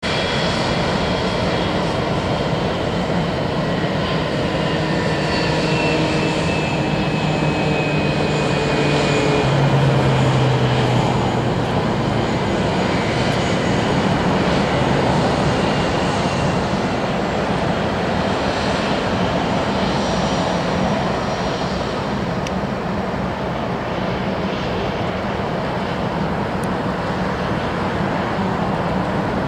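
Twin Pratt & Whitney PW2000-series turbofans of a Boeing 757-200 at taxi power: a steady jet whine over rumbling noise. The sound grows loudest about ten seconds in as the airliner rolls past, and its whine tones slide down in pitch as it goes by.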